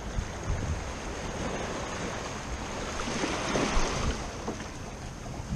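Small waves washing and splashing against the rocks of a stone jetty, with wind noise on the microphone.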